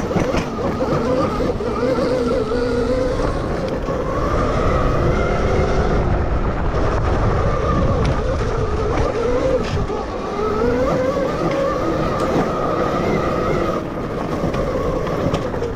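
Electric dirt bike's 12 kW MG160A motor whining as it is ridden, its pitch drifting up and down with speed, over a continuous low rumbling noise.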